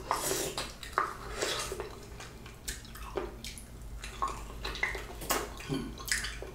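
Close-miked eating of a juicy ripe peach: wet bites and chewing, with many short sticky smacks and clicks.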